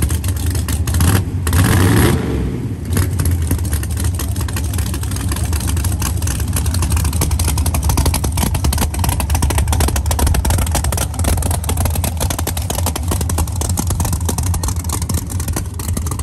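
Big-block V8 of a 1969 Camaro drag car idling with a fast, heavy pulse, with one short rev of the throttle about a second in.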